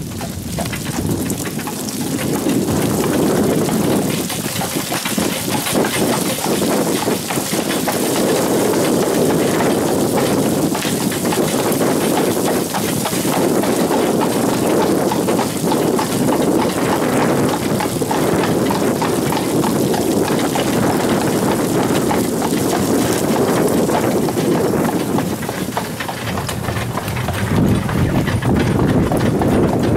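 Horse-drawn carriage on the move: hooves clip-clopping over a steady rushing noise from the wheels and wind, easing briefly near the end.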